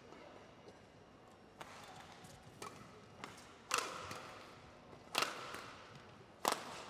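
Badminton rackets hitting a shuttlecock during a doubles rally: sharp hits roughly one to one and a half seconds apart, the three loudest in the second half, each ringing briefly in the hall.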